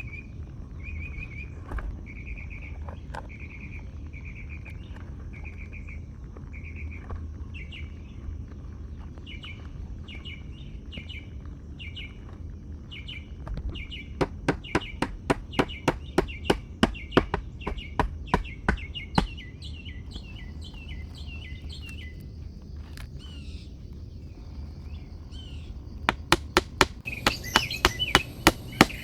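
A small bird chirps over and over in short repeated notes. Twice a quick run of sharp knocks, about four a second, comes in loud over it: work blows on wood or metal.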